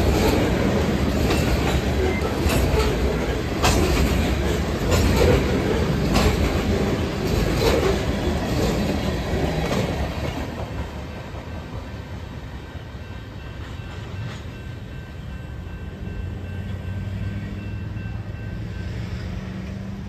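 Freight train cars rolling past: a heavy rumble with repeated sharp clacks of wheels over rail joints. About halfway through the noise fades as the end of the train goes by, leaving a quieter low hum of road traffic that grows near the end.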